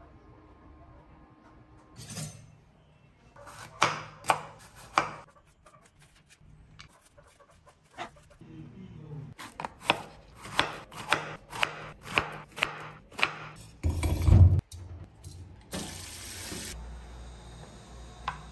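Chef's knife chopping ampalaya (bitter gourd) on a wooden cutting board: a few sharp knocks about four seconds in, then an even run of about two chops a second. A heavier thump comes just after the run.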